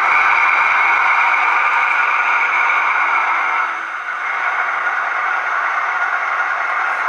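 Diesel engine running sound from a model locomotive's DCC sound decoder, played through the model's small speaker, steady with little bass. The note changes a little before halfway, with a brief dip in level, then carries on.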